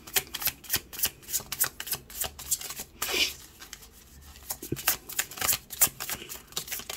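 A deck of tarot cards being shuffled by hand: rapid runs of card flicks and slaps. There is a short lull about halfway through before the shuffling picks up again.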